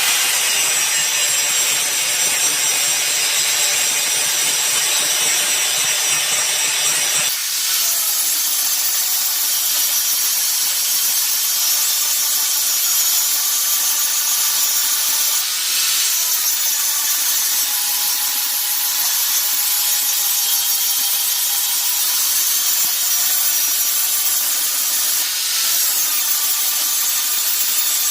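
Power grinder grinding down the steel of a forged axe blade: a steady, loud grinding that goes on without a break. Its deeper rumble drops away about seven seconds in.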